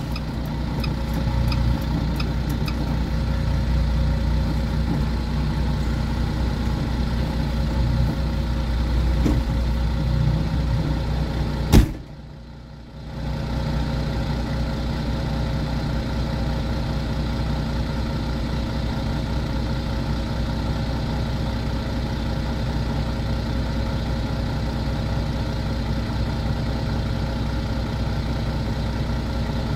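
Semi truck's diesel engine idling steadily. About twelve seconds in there is a single sharp knock, after which the sound drops for about a second before the idle returns.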